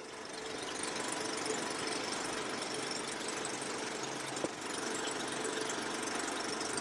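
Film projector running: a steady mechanical whir and clatter, fading in over the first second and then holding steady.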